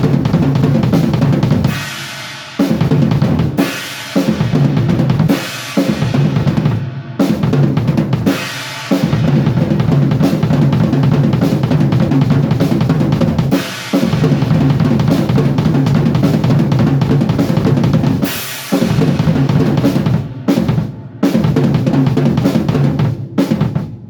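Drum kit played fast in a warm-up sound check: dense runs of snare, toms and bass drum with cymbal crashes, broken by short pauses every couple of seconds, and stopping just before the end.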